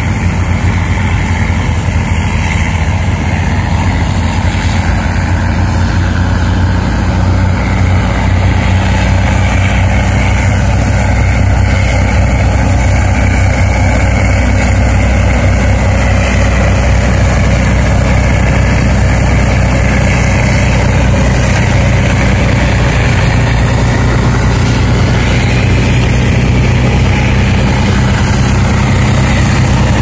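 Oshkosh rotary snow blower truck working a roadside snowbank: its heavy engine running steadily under load, with the rush of the front auger and impeller tearing into snow and blasting it out the chute. It grows somewhat louder a few seconds in as the machine comes closer.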